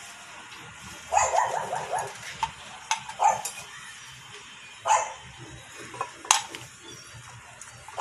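A dog barking a few times, short calls a second or two apart, with a couple of sharp clicks in between.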